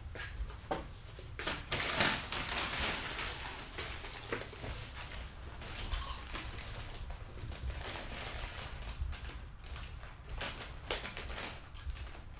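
Crackling and rustling of a crumpled plastic snack packet being handled, loudest about two seconds in, then going on irregularly in small crinkles.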